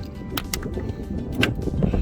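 Background music with steady tones, over which plastic trim clips click sharply three times as a boot-lid panel is worked loose.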